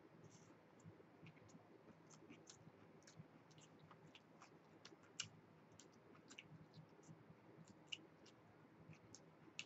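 Faint chewing of a roast beef hoagie on a soft roll: quiet wet mouth clicks, irregular and several a second, with one louder click about five seconds in.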